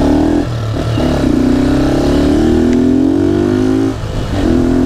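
Honda Titan 150's single-cylinder engine, running through an aftermarket Gemoto exhaust, accelerating through the gears. The pitch drops with a gear change about half a second in, then climbs for about three seconds. It drops again with another shift about four seconds in and holds steady near the end.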